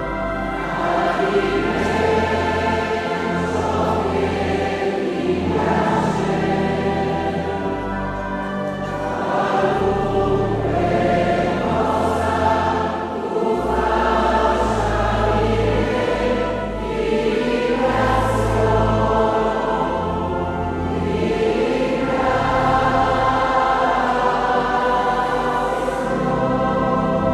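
A church choir singing a hymn over sustained organ accompaniment, with the organ's low bass notes changing in steps beneath the voices.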